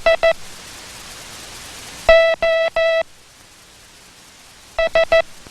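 Morse code sent as a buzzy keyed tone, letters made only of dits or only of dahs: the tail of a run of quick dits at the start, three long dahs (the letter O) about two seconds in, and four quick dits (the letter H) near the end.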